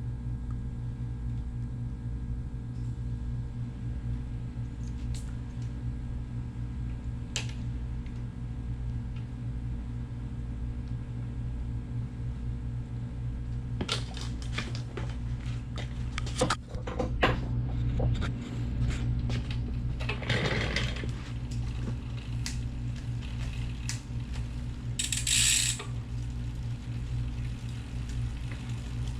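Scattered metallic clicks, clinks and knocks of tools and bicycle parts being handled during a gear shifter repair, starting about halfway, over a steady low hum. A brief hiss comes near the end.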